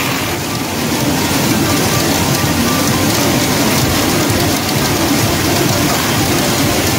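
Steady din of a pachinko parlor: steel pachinko balls clattering through the machines in a dense, even rattle like heavy rain.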